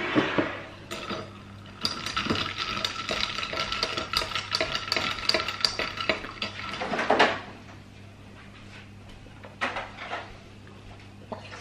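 A long metal spoon stirring ice cubes in a glass mug of iced tea: a fast run of clinks against the glass, with the glass ringing, for about five seconds, then a few single clinks.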